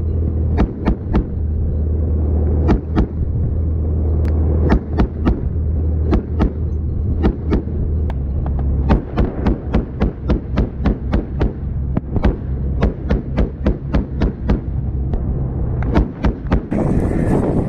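Armoured military vehicle running at speed: a steady low engine drone that shifts in pitch about halfway through, with sharp knocks and clanks coming irregularly, several a second at times, and a hiss coming in near the end.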